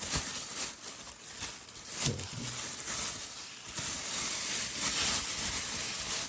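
Plastic and paper packaging rustling and crinkling as it is handled, with scattered small crackles.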